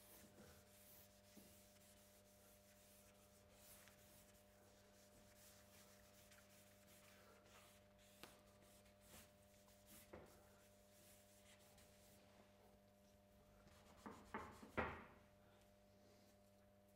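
Faint scratching and rubbing of a charcoal stick on paper as lines are drawn, scattered soft strokes over a steady low hum, with a louder run of strokes near the end.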